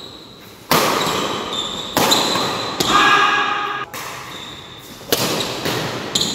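Badminton rackets striking a shuttlecock in a rally: five sharp smacks, each ringing on in a large hall's echo, the loudest about three seconds in. A short squeak follows that hit and cuts off abruptly.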